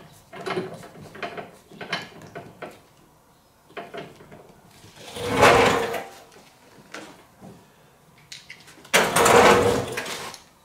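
Plastic hose caps and fittings being handled and screwed onto a sprayer's Y-splitter connections. A run of small clicks and rattles comes first, then two louder, longer noises of about a second each, around five and nine seconds in.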